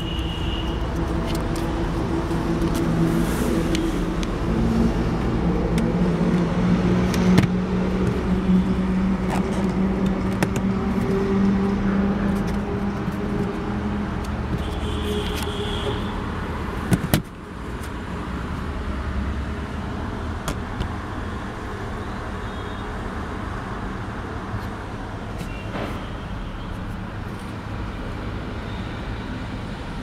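Steady motor-vehicle noise: a low engine hum with traffic, scattered with a few light clicks. A little over halfway through a sharp knock comes, and the sound drops to a quieter, more even hum.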